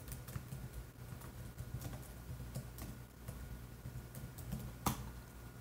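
Faint computer-keyboard typing: irregular light keystrokes as a terminal command is typed, with one sharper click about five seconds in.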